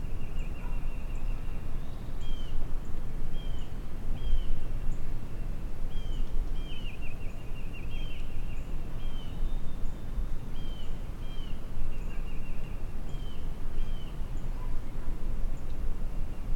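Steady wind rumble on the microphone, with a small songbird calling over it again and again in short, high, down-curving notes and quick trills.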